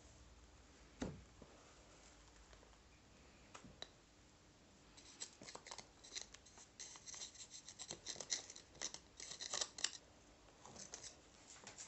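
A knock about a second in as the steel sand-casting flask is handled. From about five seconds in comes a run of quick scratching and scraping as a pointed metal tool digs the packed casting sand away from freshly cast bronze pins.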